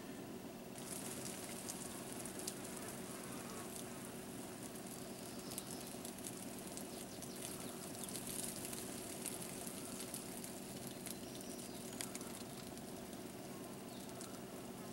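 Pasta water being strained off through a camp pot's built-in strainer lid: a faint, steady hiss of draining water starting about a second in, with occasional light clicks.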